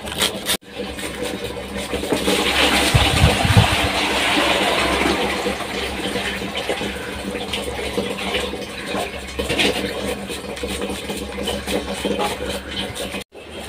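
A steady rushing noise with a low rumble, over which a knife makes faint, scattered cuts through leafy greens held in the hand. The sound breaks off sharply about half a second in and again near the end.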